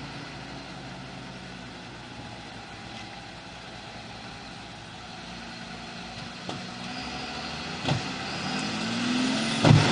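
Truck engine running at low speed under load, steady at first, then louder and rising in pitch over the last few seconds. There are a couple of brief knocks, and a sudden loud noise comes right at the end.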